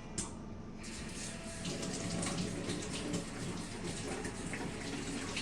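Water running from a tap into a sink as a dish is washed, starting about a second in and running steadily.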